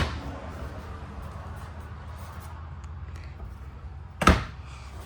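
Two sharp knocks of RV overhead storage cabinet doors being shut, one right at the start and another about four seconds in, over a steady low hum.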